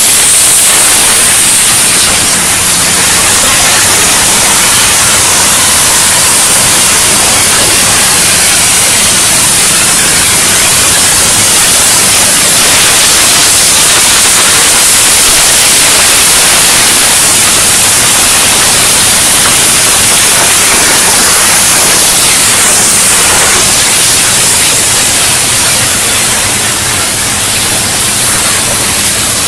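CNC oxy-fuel flame-cutting torches burning through thick steel plate: a loud, steady hiss of the cutting jet. A faint low hum runs underneath.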